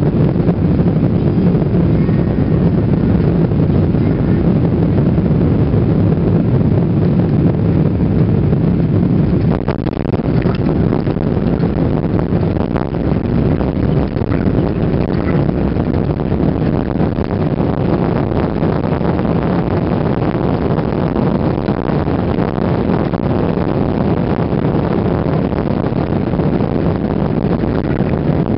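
Cabin noise of a Boeing 777-300ER during landing: a steady low rush of airflow and GE90 engines. About ten seconds in the jet touches down, and the noise turns to a rumble of the wheels on the runway as it rolls out.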